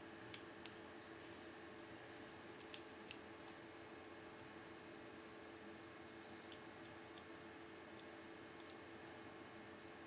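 Lock pick and tension wrench working the pin-tumbler cylinder of a Federal Lock 8102 padlock: small metallic clicks as the pins are lifted and set. There are sharper clicks in two small clusters in the first three seconds, then a few fainter, scattered ticks.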